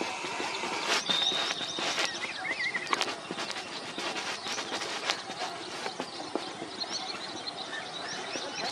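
Wetland bird chorus: many birds chirping and calling at once, with short whistles and trills. A few sharp clicks or knocks stand out in the first half.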